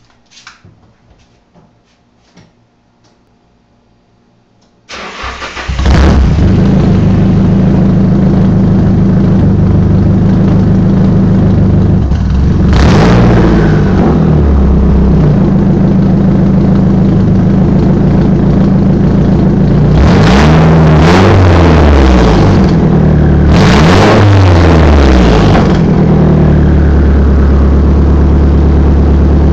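A few faint clicks, then a Nissan SR20DET turbocharged four-cylinder engine with a straight-piped exhaust starts about five seconds in and idles loudly. It is revved three times, each rev rising and falling in pitch with turbo whistle, the last two close together, before settling back to idle.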